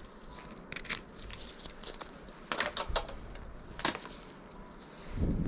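Sound-absorbing material being handled and sized: irregular crinkling and rustling with a few sharp clicks, and a low thump near the end.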